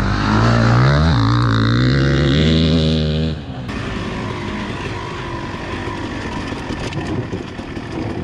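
An enduro motorcycle's engine revving hard as the bike takes a corner, its pitch rising and falling. About three and a half seconds in, the sound drops to a quieter, rougher engine note mixed with noise: a 2001 Honda CR250's two-stroke single-cylinder engine heard from on board the bike.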